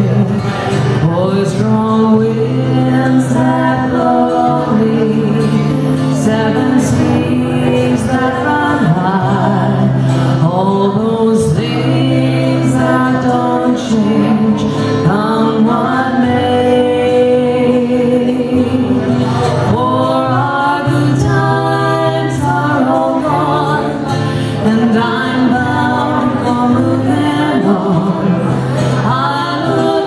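Two women singing a folk ballad in harmony, accompanied by two strummed acoustic guitars.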